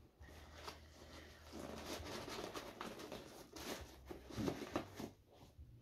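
Rustling and scattered light clicks and knocks as a new pair of shoes and their packaging are handled, busiest in the middle of the stretch.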